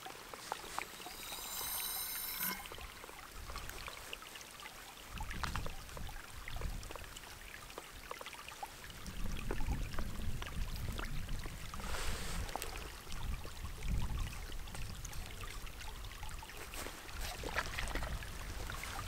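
Grayl water purifier bottle being pressed: water trickling and pouring as it is forced through the filter, with a brief high squeak about two seconds in. A stream runs steadily underneath, and wind rumbles on the microphone at times.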